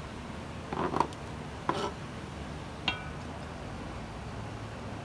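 Kitchen knife chopping through raw chicken joints on a cutting board. Two knocks come about a second in and just before two seconds, then a short ringing clink near three seconds.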